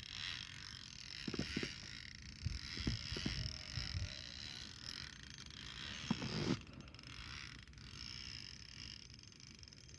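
Fishing reel and rod under load: scattered creaks and clicks of the reel mechanism as a carp angler strains against a fish that won't budge, over a faint steady hiss.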